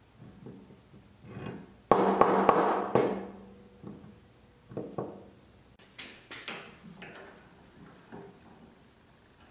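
A rusty steel railroad spike handled on a workbench and fitted into a bench vise. There is a loud clatter with a lingering ring about two seconds in, then a series of sharp metal knocks and clicks.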